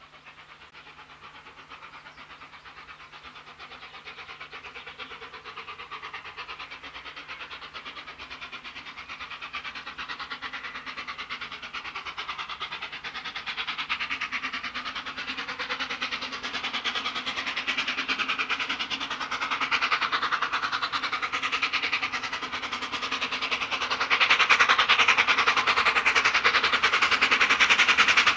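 BR Standard Class 4MT 4-6-0 steam locomotive working a passenger train, its two-cylinder exhaust beating in a quick even rhythm and growing steadily louder as it approaches, with a further jump in loudness near the end.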